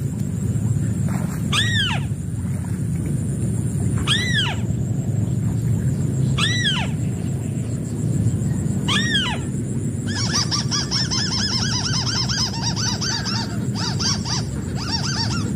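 White-browed crake calling: single arched nasal notes about every two and a half seconds, then from about ten seconds in a fast chattering run of notes. A steady low rumble runs underneath.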